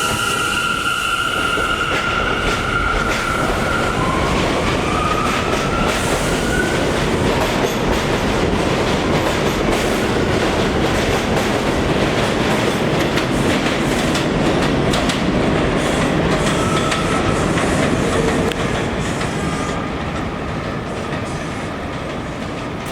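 Bombardier R179 subway train pulling out: a steady whine and then a rising whine as the motors accelerate, followed by the wheels clacking over the rail joints. The sound fades near the end as the train moves away.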